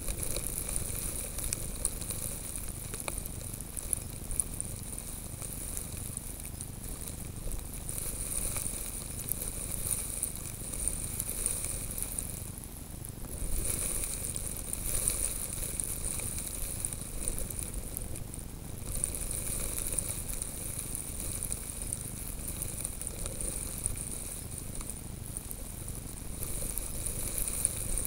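Steady hiss of wind and blowing snow at snow level, with snow grains pattering against the camera and wind fluttering on the microphone.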